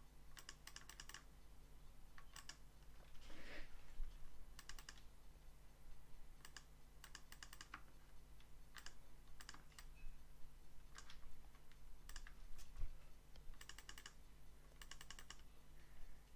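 Computer mouse and keyboard clicking in short bursts of several quick clicks, about a dozen bursts spread through, over a faint steady electrical hum.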